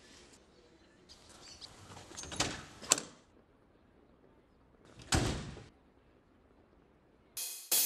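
An old sedan's door being worked: a rustle and a sharp latch click about three seconds in as the driver's door opens, then a single thud about two seconds later as it shuts. Music comes in just at the end.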